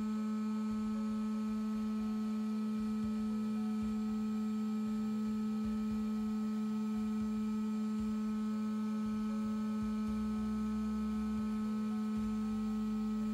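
Parkside PHLGA 20 Li-A1 cordless heat gun running at its maximum 550 °C setting: a steady, even hum from its fan motor.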